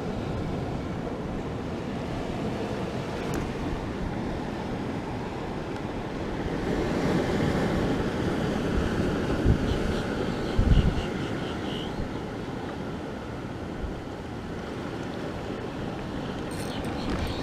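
Wind buffeting the microphone over the steady wash of ocean surf, swelling for a couple of seconds about midway, with one short low thump about two-thirds of the way through.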